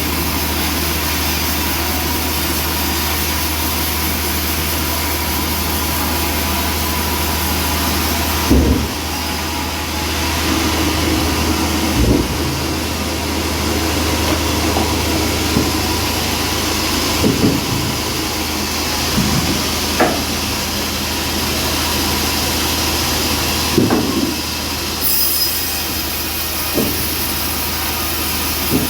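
Band sawmill running steadily, its blade sawing through a trembesi (rain tree) log, with a loud low hum under a hiss. A few short knocks come every few seconds.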